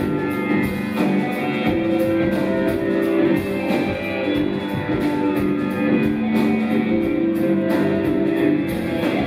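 Live band playing an instrumental passage between vocal lines, with held notes over a steady beat.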